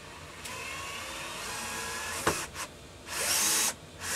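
Bosch cordless drill-driver driving a screw into a wooden frame batten, the motor running in short loud bursts from about three seconds in and again near the end, with a single sharp knock just before.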